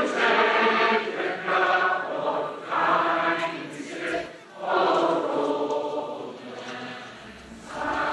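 A group of voices singing together like a choir, in slow phrases of held notes with short breaks between them.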